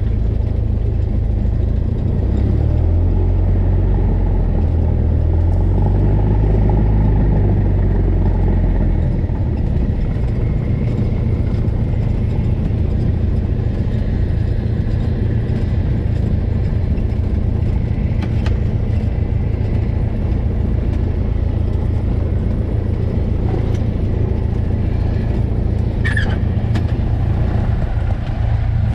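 Light single-engine piston airplane's engine and propeller at low taxi power, heard inside the cockpit: a steady low drone whose pitch shifts over the first several seconds, then holds. A brief high chirp about 26 seconds in.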